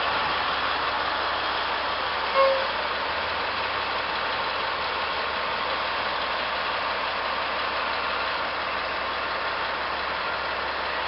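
Caterpillar 777 haul trucks' diesel engines idling as a steady, noisy drone. A short high tone sounds once, about two and a half seconds in.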